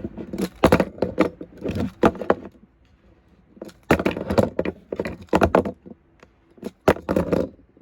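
Toy monster trucks clattering and knocking as they are flipped and land on a hard surface, in about five bursts of rattling clicks separated by short pauses.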